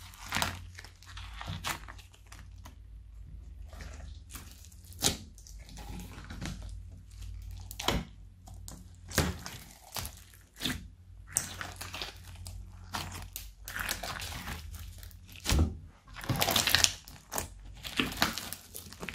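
Hands squishing and kneading a thick batch of slime studded with foam beads and sprinkles, giving irregular crackles, crunches and wet pops, with a denser run of crunching near the end. A steady low hum lies underneath.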